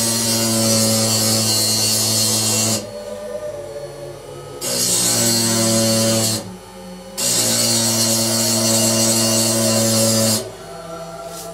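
A small electric motor running steadily at one pitch with a hiss on top, switched on three times for about two to three seconds each.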